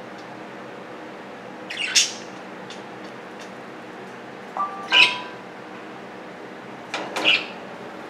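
Budgerigars chirping: three loud, sharp calls spaced two to three seconds apart, with fainter short chirps between, over a steady low hum.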